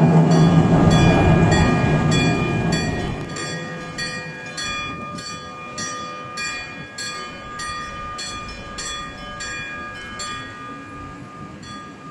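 A Randen tram running over a street level crossing, its rumble fading over the first three seconds. Meanwhile the crossing's warning bell clangs steadily, about two and a half strikes a second, and stops shortly before the end.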